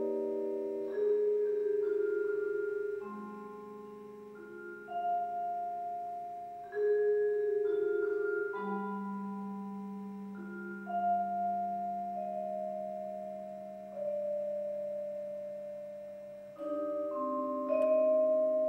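Yamaha vibraphone played solo with four mallets: slow chords struck about every two seconds, each left to ring and fade.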